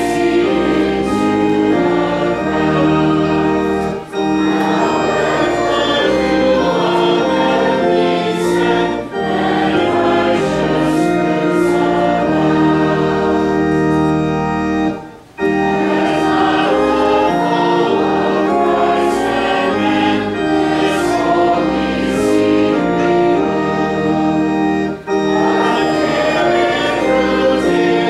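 Church congregation singing a hymn to pipe-organ-style accompaniment, in sustained chords that move note by note, with a brief pause about halfway through.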